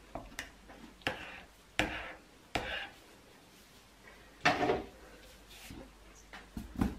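About half a dozen sharp knocks and clatters, a second or so apart, from a plastic jug, spatula and silicone soap mould being handled and set down on a worktop.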